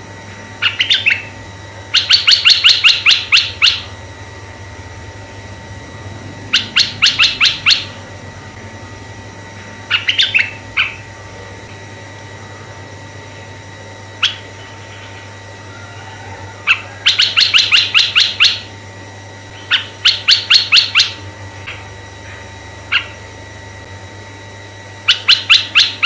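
Red-eyed bulbul calling: phrases of rapid chattering notes, each a second or so long, repeated every few seconds. A faint steady hum lies underneath.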